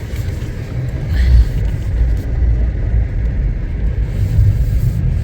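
Car driving, heard from inside the cabin: a steady low rumble of the engine and the tyres on the road, growing heavier about a second in.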